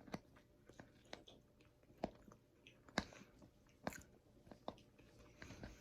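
Close-up mouth sounds of chewing seasoned fries with nacho cheese and jalapeños: irregular wet clicks and soft crunches, the louder ones about two, three and four seconds in.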